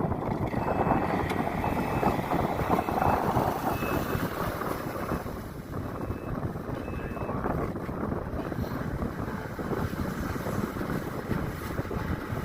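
Wind buffeting the microphone, a rough rumbling rush that rises and falls. A faint short high beep repeats about once a second through the first half.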